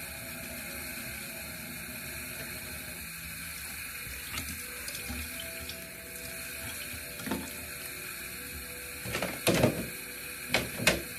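Bathroom sink tap running steadily, with a few short, louder knocks near the end.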